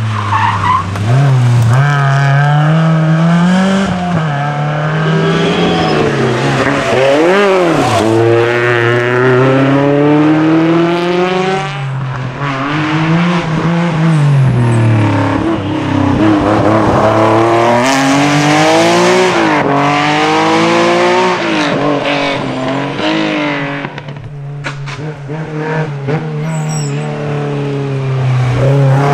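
Historic rally car engine, mostly a Porsche 911's air-cooled flat-six, revved hard through a bend: the pitch climbs and drops again and again with each gear change and lift as the car passes. It fades briefly about 24 seconds in, and another rally car's engine comes up near the end.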